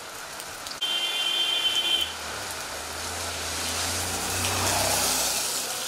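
Heavy rain falling, with a motor vehicle passing on the wet road. A horn sounds for about a second near the start, then the vehicle's low engine hum and tyre hiss swell and fade.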